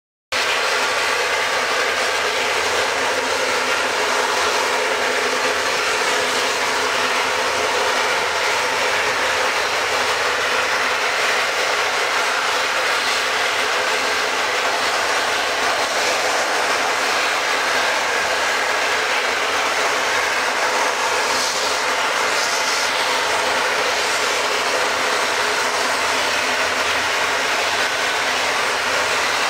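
Bombardier CRJ-900ER's two rear-mounted General Electric CF34 turbofans running at low taxi power as the jet turns onto the runway: a steady jet hum and whine that does not change in level.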